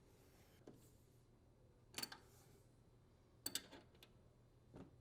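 Near silence with a few faint, sharp clicks: one about two seconds in, another about a second and a half later, and a weaker one near the end.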